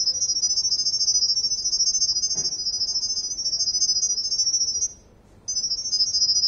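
Smart doorbell camera giving off a continuous high-pitched, rapidly pulsing electronic tone while in Wi-Fi pairing mode. The tone breaks off for about half a second about five seconds in, then starts again.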